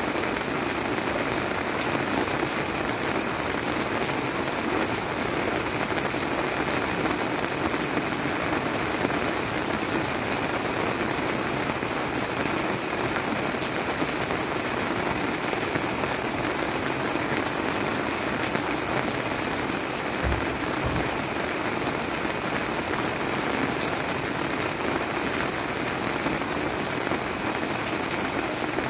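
Steady monsoon-season rain falling, an even, constant hiss of drops.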